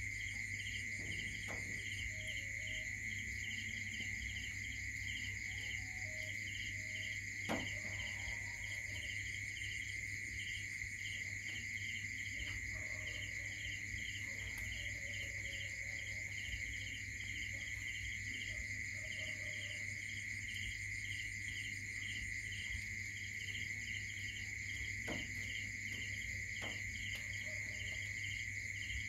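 Crickets and other night insects chirping steadily, one of them in a pulsed chirp about two or three times a second, over a steady low hum. A single sharp click stands out about seven and a half seconds in.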